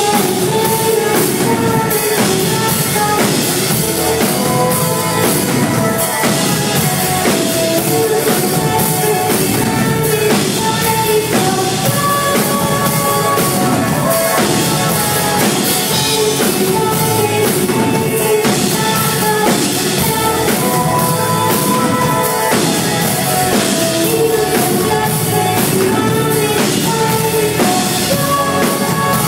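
Live band playing a pop-rock song, with a drum kit keeping a steady beat and a woman singing lead into a microphone.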